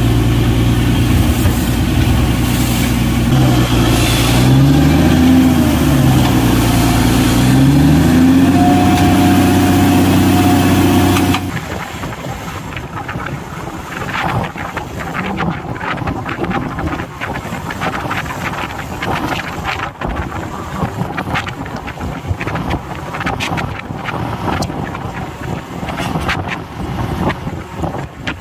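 Engine of a tube-well drilling rig running, its pitch rising and falling several times, with a steady whine joining in just before a sudden cut about eleven seconds in. After the cut comes a quieter rushing noise with scattered irregular knocks.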